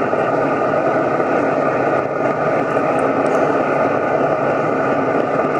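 Portage & Main Optimizer 250 wood gasification boiler running on a full, hot burn: a loud, steady rushing noise with a hum of several held tones.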